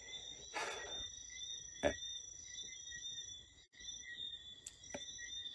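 Steady high-pitched chirring of an insect chorus, holding several tones at once. A brief rustle comes about a second in, and a sharp knock near two seconds in, with a couple of lighter clicks near the end.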